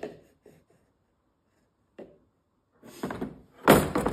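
Handling sounds of a heavy electric core drill and its hard plastic carrying case: a few light clicks, then near the end a loud clunk with a rattling tail as the drill is set down in the moulded case.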